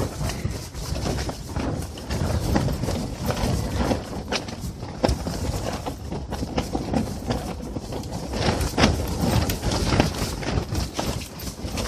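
Strong wind buffeting a portable ice-fishing shelter: the fabric walls flap and snap irregularly over a steady rumble of wind on the microphone.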